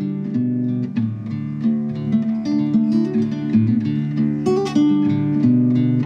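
Background music of acoustic guitar playing strummed and plucked chords at a steady pace.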